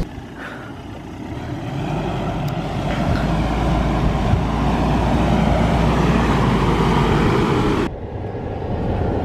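Ford Endeavour's 3.2-litre five-cylinder diesel running as the SUV crawls slowly through a sandy off-road trench, growing louder as it comes closer. About eight seconds in the sound changes suddenly to the engine heard from inside the cabin, duller and with less hiss.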